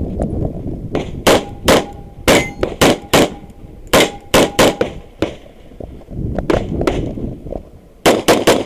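Tanfoglio Stock 3 9 mm pistol firing in quick pairs and short strings, with a fast string of about four shots near the end. The shots are very loud and close, with a low rumble between them.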